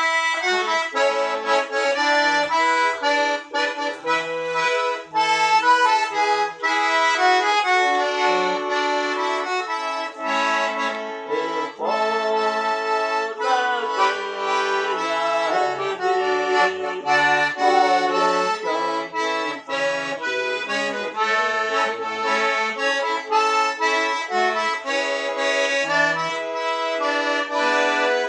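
Accordion (sanfona) playing a lively tune, a fast melody of many short notes over short bass notes.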